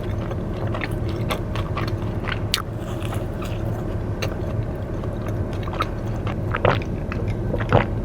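Close-miked biting and chewing of a soft chocolate donut: wet mouth clicks and smacks, a few louder bites near the end.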